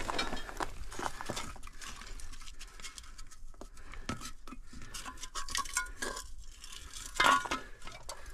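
Old rusty tin cans being picked up and handled, their thin metal clinking and scraping against loose rock rubble in many small, irregular knocks, loudest about seven seconds in.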